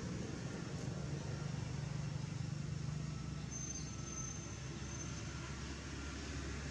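A steady low engine hum. A faint thin high whine rises over it for about two seconds midway.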